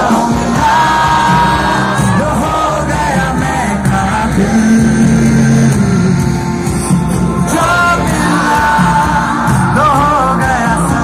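Loud amplified live music with a singing voice, heard from within the crowd, with people yelling and whooping.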